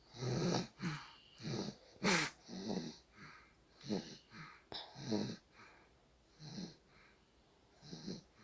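A sleeper snoring in short, irregular snores, about a dozen in quick succession, each falling in pitch, with a few longer pauses in the second half.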